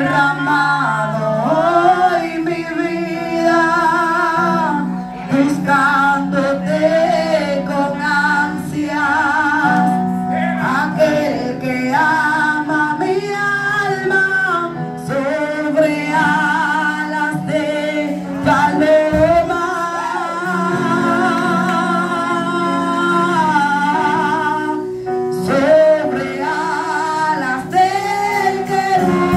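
A woman singing a Spanish worship song into a microphone, her voice wavering in vibrato on held notes and amplified through PA speakers, over sustained keyboard chords.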